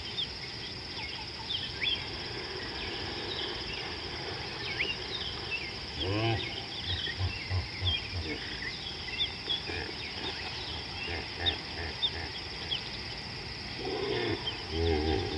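Steady high insect chorus with many short bird chirps over it. Twice, about six seconds in and again near the end, a large animal gives a low pulsing, grunting call.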